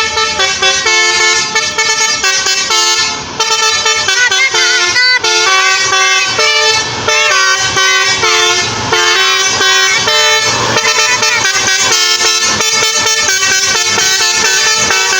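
Tour bus telolet basuri horn playing a melody of quickly changing multi-tone notes, loud and without a break, with a few sliding notes between them.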